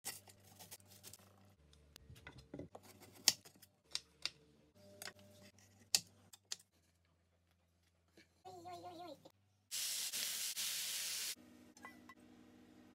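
Kitchen knife slicing vegetables on a wooden cutting board, a run of sharp taps. About ten seconds in comes a loud steady sizzle lasting about a second and a half, vegetables frying in a hot wok.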